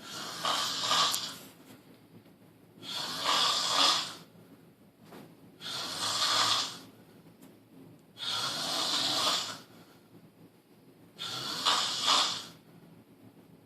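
Loud snoring in a steady rhythm: five snores, each a little over a second long, about every two and a half seconds, with quiet breathing in between.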